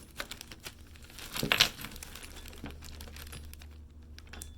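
Plastic bag crinkling and rustling as it is handled, with small clicks, and one louder rustle about a second and a half in.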